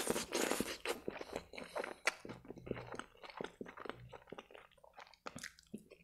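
A short slurp as a forkful of spaghetti in tomato sauce goes into the mouth, then close-up chewing of the soft noodles with many small wet clicks.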